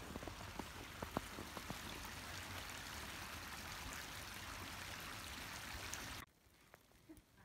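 Steady rushing of a small creek, with a few faint crunches in the first couple of seconds; the sound cuts off suddenly about six seconds in.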